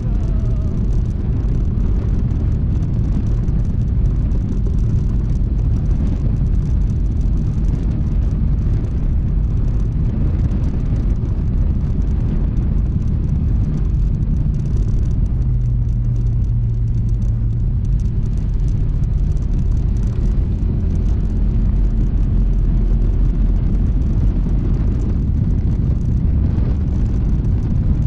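Honda ADV160 scooter riding at steady speed: a constant low rumble of wind on the GoPro microphone mixed with the single-cylinder engine running.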